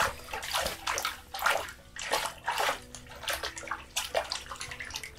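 Cutthroat trout splashing in an ice-fishing hole as it is pulled up and landed by hand: a run of irregular splashes and sloshes of water.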